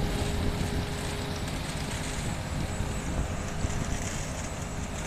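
CRF self-propelled tomato harvester at work, with the truck running alongside it: a steady low machine rumble with a constant hum.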